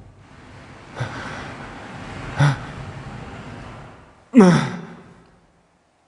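A person breathing out heavily and audibly, then a short voiced sigh that falls in pitch.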